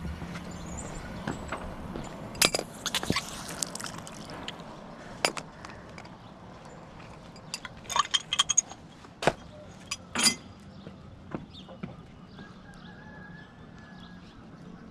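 Pipe wrench working on a copper pipe fitting: a series of sharp metallic clinks and knocks at irregular intervals, over a steady hiss of water spraying from the pipework.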